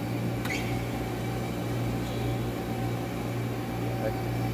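CNC lathe running with a steady machine hum, with a short click about half a second in.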